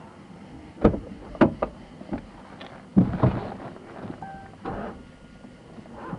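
A few sharp knocks and thuds, the loudest about a second in and about three seconds in, followed a little after four seconds by a brief high steady tone like a beep.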